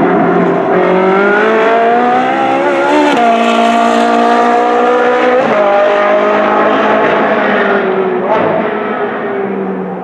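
Ferrari 458 Challenge's naturally aspirated V8 pulling hard. Its pitch climbs, drops sharply at an upshift about three seconds in, and shifts again around five and a half seconds in. It then falls in pitch and fades slightly as the car draws away.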